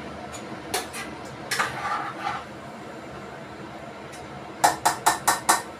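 Spoon stirring in a stainless steel pot, with a few clinks against the pot, then five quick sharp knocks of the spoon on the pot near the end.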